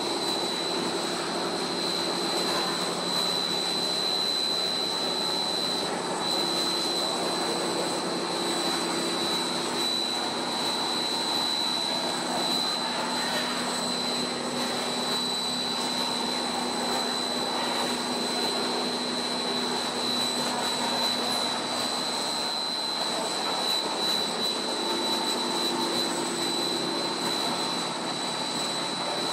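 Blown film extrusion line running: a steady machine drone with a constant high-pitched whine over it.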